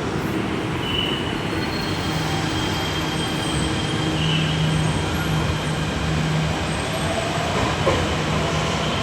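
Steady rumbling noise of a moving vehicle, with a faint high squeal about a second in and again around four seconds, and a low hum through the middle.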